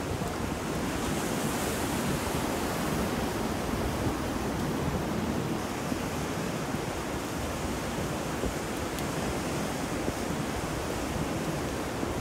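Ocean surf, wind and rain together as a steady, unbroken rushing wash with a low rumble underneath. There are no distinct wave breaks or gusts.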